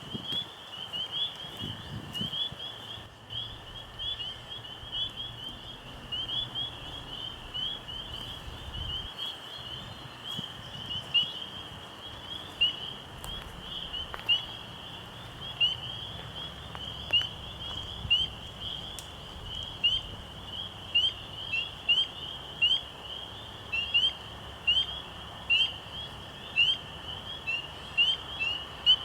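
A night chorus of small frogs by a pond: many high, short chirping calls overlapping without a break. In the second half one closer caller stands out, chirping louder about once a second, over a faint low rumble.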